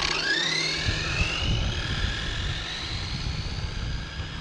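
Arrma Senton 6S RC truck's brushless motor and drivetrain whining as it accelerates flat out on a speed run: a whine that rises steeply in pitch over the first two seconds, then holds steady and slowly fades as the truck moves away.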